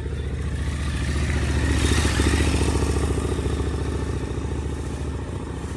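A motorcycle passing on the road, its engine growing louder to a peak about two seconds in, then fading away.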